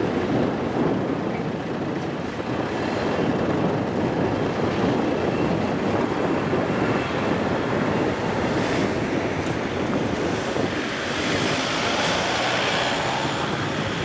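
Steady wind rushing over the microphone, with the rumble of a departing train fading into the distance underneath.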